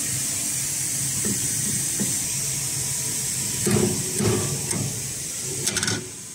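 Steel upper cutting die being lowered by hand over its guide pillars onto the lower die: metal knocking and scraping about four seconds in, then a few sharp metallic clinks near the end, over a steady background hiss and low hum.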